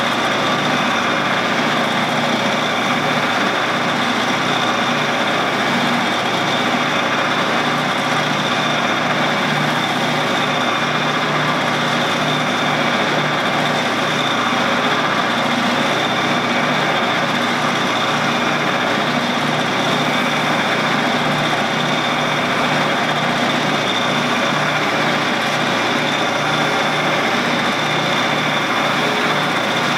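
Shopsmith motor running at a steady speed, turning a long stainless rod while it is polished with a rag: a constant hum with a steady high whine.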